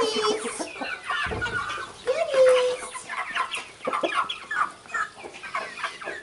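Chickens clucking and calling together in many short overlapping calls, with one longer, drawn-out call a little over two seconds in standing out as the loudest.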